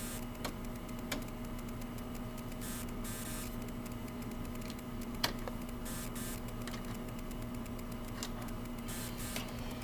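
Steady electrical hum from a bench oscilloscope, broken by a few sharp clicks of its front-panel controls being switched: about half a second in, a second in, and once more about five seconds in.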